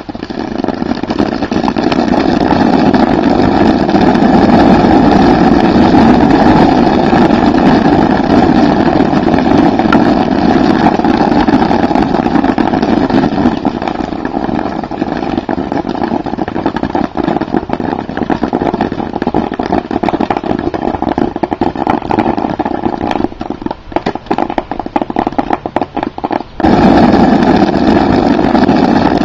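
Dozens of plastic cap-gun ring caps going off on hot grill charcoal: a loud, dense, rapid crackle of tiny pops that thins out past halfway to scattered single pops. Near the end the full crackle returns abruptly, played backwards.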